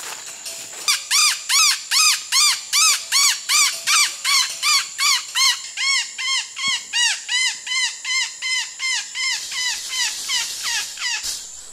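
A forest animal calling: a long series of loud, ringing notes, each rising then falling in pitch, about two and a half a second, slowing and dropping slightly in pitch toward the end. A steady high-pitched insect drone runs underneath.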